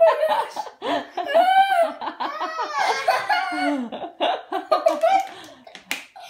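Children laughing and squealing in high-pitched bursts of excitement.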